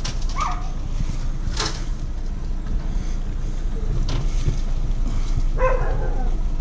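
Chevrolet Lacetti on a test drive: a steady low rumble of engine and road with no whistle or squeal from the brakes, now that a stone caught between the brake disc and its dust shield has been removed.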